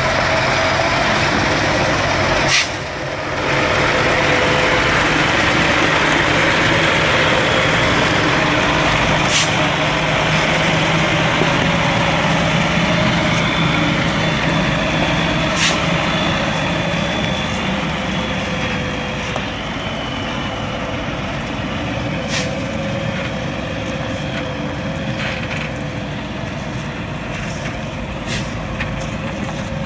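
Heavy truck engine running steadily, with a brief drop in level about two and a half seconds in and a few short sharp clicks scattered through.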